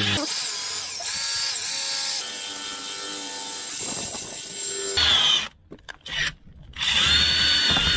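Cordless drill running as it bores a hole through a battery terminal clamped in a vise, its motor whine wavering as the bit bites into the metal. It stops about five seconds in and runs again briefly near the end. The bit is blunt, so it cuts poorly.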